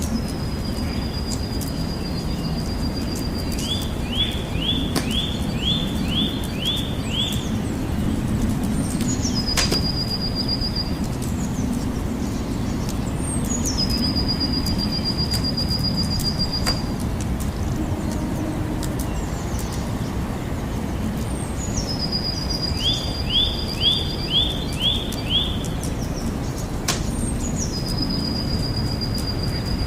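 Wood campfire crackling with scattered sharp pops over a steady low rumble. A songbird repeats a long, high, steady whistle that opens with a quick drop in pitch, four times, and twice gives a quick run of about six to eight short falling notes.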